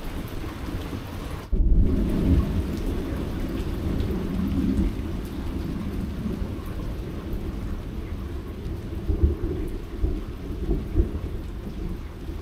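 Thunder rumbling, low and long, getting suddenly louder about a second and a half in, with a few short low booms in the second half.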